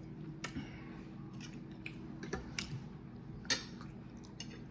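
Eating sounds: a metal fork clicking and scraping on a ceramic plate and chewing of scrambled eggs, as scattered short clicks over a steady low hum.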